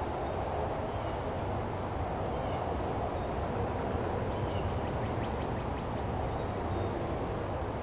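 Steady low rumbling background noise outdoors, with a few faint, brief high chirps now and then.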